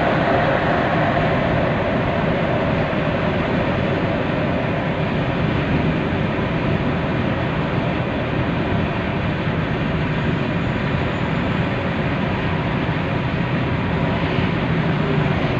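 Steady road noise inside a car cruising at freeway speed: tyres on the road surface with a steady low hum underneath.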